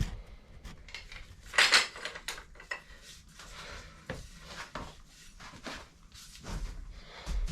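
Metal tools clinking and scraping against a seized fastener on a motorcycle engine's clutch. Irregular clicks and knocks, with one louder scraping clatter about a second and a half in.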